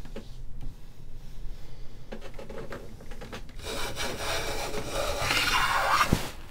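Large hand plane shaving along the edge of a wooden bass fretboard, cutting a compound radius: light scraping at first, then one long, louder shaving stroke in the second half that ends in a sharp knock.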